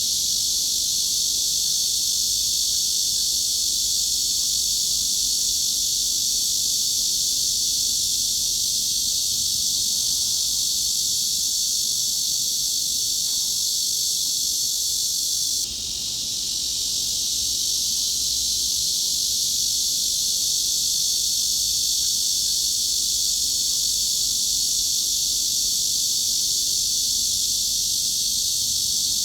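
Continuous high-pitched cicada buzz. It dips briefly a little past halfway and swells back over a second or two.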